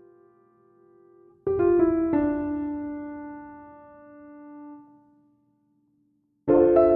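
Background piano music: a few notes struck about a second and a half in and left to ring and fade, a short silence, then a new chord near the end.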